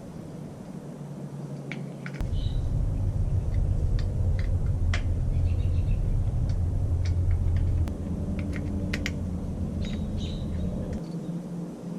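A low rumble that starts abruptly about two seconds in, eases off near eight seconds and stops near the end, with scattered light clicks and a few faint bird chirps over it.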